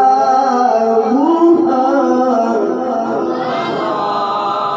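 A man reciting the Qur'an in the melodic tilawah style into a microphone: long held notes that slide and waver in pitch, ornamented without a break.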